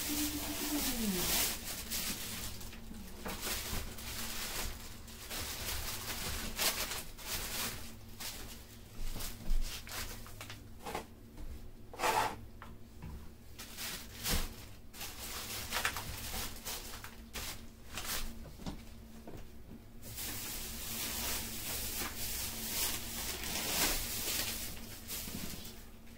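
Plastic grocery bags rustling and crinkling in irregular bursts as produce is handled by a gloved hand.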